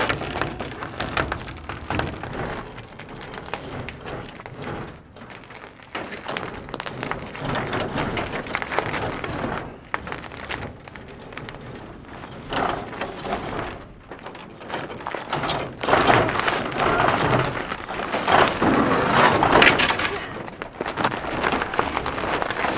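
A chicken tractor (mobile chicken coop) pushed by hand over ice and rough ground: irregular crunching and cracking with knocks. It gets louder in surges in the last several seconds.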